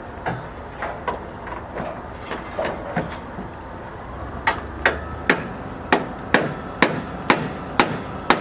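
Hammer blows: scattered, lighter strikes at first, then a steady run of strong strikes about two a second from about halfway in.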